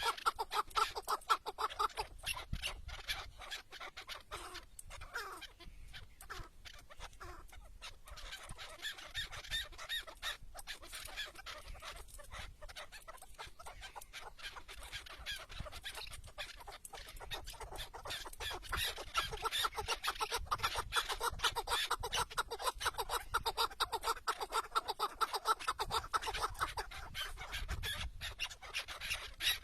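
Chukar partridges calling in long runs of rapid, repeated clucking notes. The calls are louder near the start and again from about eighteen seconds in.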